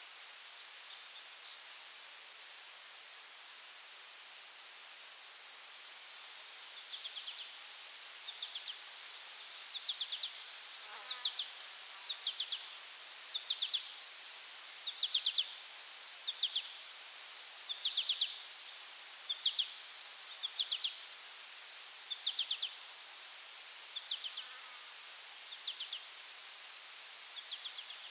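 Forest insect chorus: a steady high-pitched drone with a fast ticking chirp beneath it, joined from about seven seconds in by a short trilled chirp repeating a little more than once a second.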